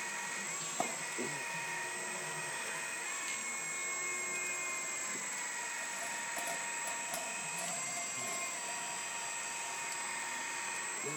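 Hydraulic pump of a radio-controlled model excavator whining steadily, its pitch dipping and recovering several times as the arm works a 10 kg test weight. A couple of small clicks about a second in.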